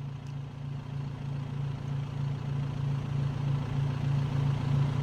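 Vehicle engine idling with a steady low hum that grows gradually louder.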